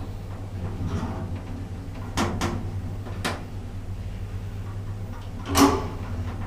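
Lift in operation: a steady low hum with a few sharp clicks, and a louder thump a little over five seconds in.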